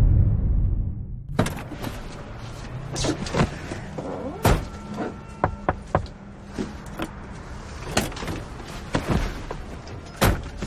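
A deep boom dies away over the first second. Then an irregular string of sharp clicks and knocks sounds inside a car, with two louder knocks, one midway and one near the end.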